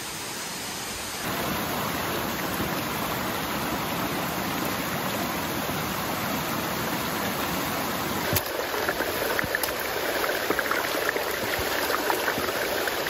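Steady rush of flowing water, stepping up in level about a second in, with scattered light ticks and taps in the second half.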